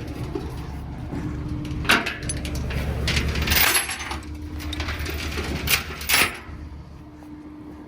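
Several sharp metal clanks and rattles, as of steel hardware and chain being handled, over a low rumble that stops about halfway through.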